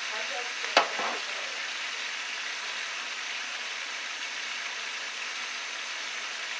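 Catfish nuggets frying in a pan, a steady sizzle. About a second in there is a sharp click, followed closely by a softer one.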